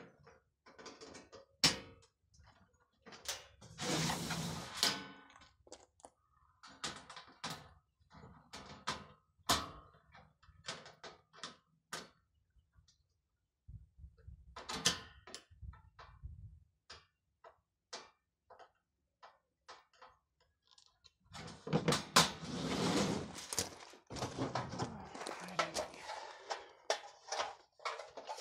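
Thin galvanized sheet-metal panels of a nesting box being handled and fitted together: scattered taps, clicks and thunks of metal on metal and on the table, with a longer spell of clattering and scraping near the end.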